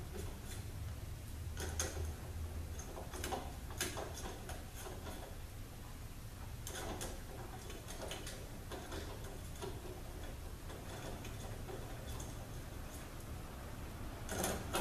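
Small metal screws being handled and hand-threaded into the reinforcing plate of a 45RFE transmission valve body: scattered light metallic clicks and ticks at irregular intervals.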